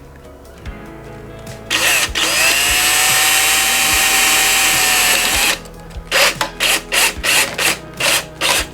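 Power drill-driver motor spinning up and running steadily for about four seconds, its pitch rising at the start and then holding.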